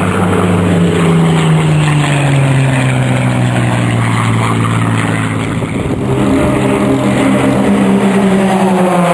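Merlin-engined Second World War fighters flying past at low level. One engine note drops in pitch as the aircraft passes and draws away, and in the last few seconds a second engine note grows louder as another aircraft comes in.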